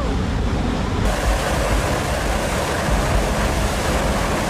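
Steamboat Geyser erupting: a loud, steady rushing of its column of water and steam, growing hissier from about a second in.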